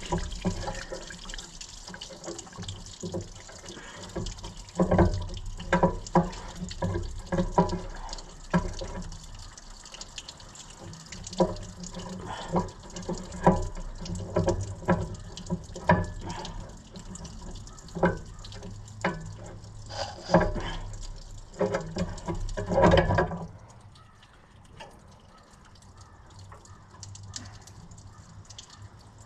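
Wrenches and metal parts clinking and knocking irregularly while a tractor carburetor is being unbolted, over a steady trickle of draining liquid. The clinking stops about 23 seconds in.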